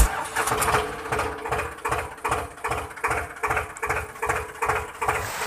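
Tractor engine idling sound from a toy tractor's sound unit: a steady chugging of about three beats a second over a constant hum.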